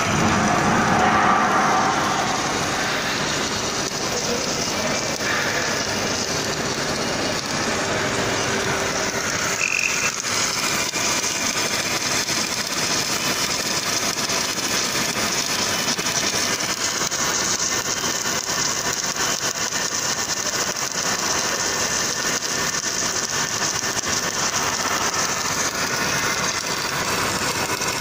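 Automatic longitudinal seam welder's arc burning continuously as the torch travels along the seam, a steady loud hiss that does not let up.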